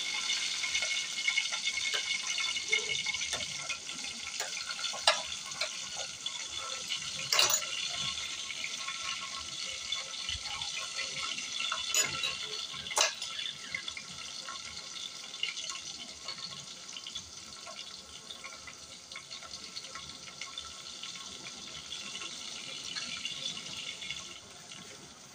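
Sliced onions sizzling in hot oil in an aluminium pot, the sizzle slowly fading, with a few sharp clicks of a metal spoon against the pot and plate.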